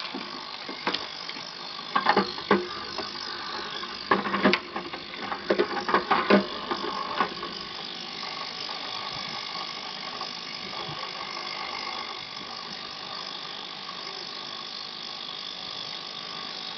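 Metal parts of an Enya four-stroke model engine knocking and clinking against a stainless-steel tray and splashing in its solvent bath, a string of sharp knocks over the first seven seconds or so. A steady hum with a few high whining tones runs underneath throughout.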